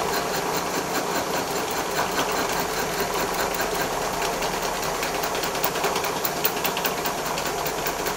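Vertical milling machine running, its cutter taking a cut around a weld-built-up malleable cast iron axle ring, with a steady rapid ticking from the cutter teeth.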